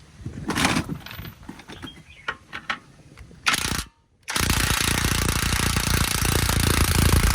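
Cordless DeWalt impact wrench hammering steadily to break loose a rusty bolt, after a short first burst. Before it come scattered clicks and knocks of tools and metal being handled.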